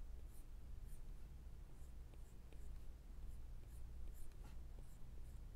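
Apple Pencil's tip scratching and tapping on an iPad's glass screen while drawing: faint short strokes, about two a second, with a few light clicks.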